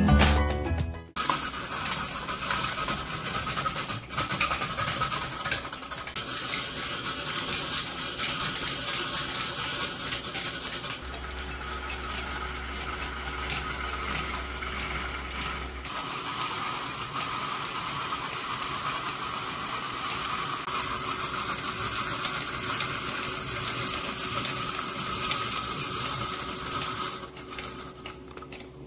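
A stand mixer's motor running a rotating-drum shredder attachment, with a steady whirring and rushing as zucchini is shredded through it. Its tone shifts several times, and it fades near the end. Music cuts off about a second in.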